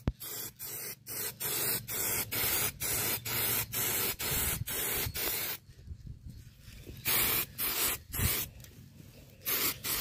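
Aerosol spray-paint can spraying in quick short hisses, about two or three a second. The spraying stops for about a second just past halfway and again a little after eight seconds, then starts again.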